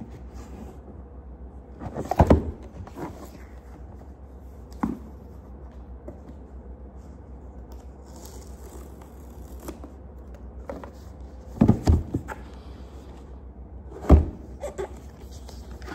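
A product box being handled and opened by hand: a few dull thunks and knocks, the loudest near the end, over a steady low hum.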